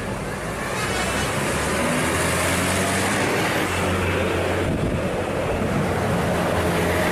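A large bus driving past, its engine a steady low hum under road and wind noise.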